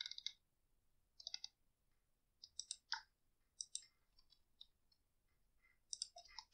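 Faint, scattered clicks of a computer mouse, coming in small groups every second or so over an otherwise near-silent room.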